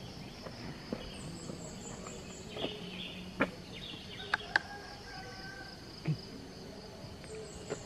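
Steady high insect drone with scattered bird chirps and calls, and a few sharp short clicks about halfway through.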